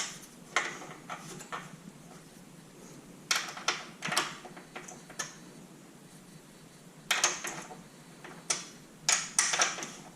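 Irregular clusters of sharp metallic clicks, knocks and short scrapes as roof-rack light bar bracket hardware is handled, shifted and tightened. They come in three bursts: near the start, around the middle, and near the end.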